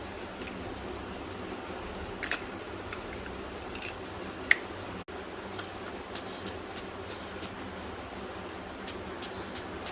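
Hands handling small packaging, with scattered light clicks and taps over a steady background hiss; the sharpest click comes about halfway through.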